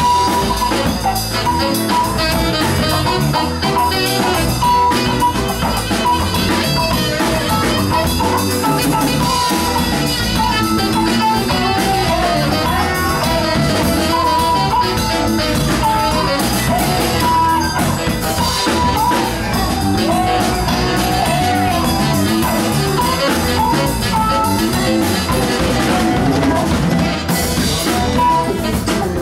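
Live Latin rock band playing: saxophone, electric guitars, keyboard and drum kit.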